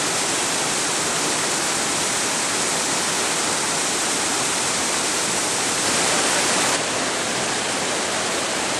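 Whitewater river rapids rushing, a steady, loud noise of churning water. About six seconds in it turns briefly louder for under a second, then drops back sharply.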